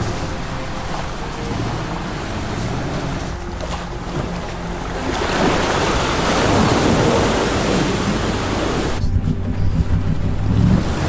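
SUV engines running as the vehicles wade through a flooded track, water splashing and surging around the wheels, loudest in the middle. About nine seconds in this gives way to a low, steady engine hum.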